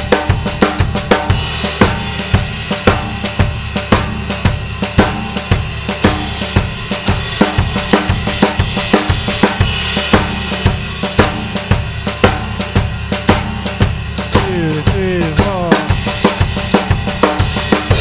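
Drum kit playing a triplet shuffle groove, with bass drum, ride cymbal and snare drum, and a Swiss Army triplet fill split between ride cymbal and snare drum, with upbeats on the snare. The playing stops at the end and the cymbals ring on.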